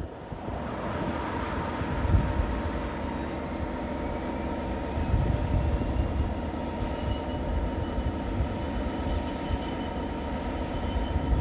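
Class 66 diesel-electric locomotives standing with their EMD two-stroke V12 engines running: a steady rumble with a held whine over it, swelling briefly a few times.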